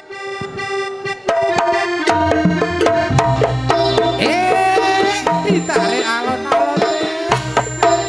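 Live East Javanese reog music: hand-struck kendang drum strokes under sustained, wavering melody lines. The music swells louder about a second in.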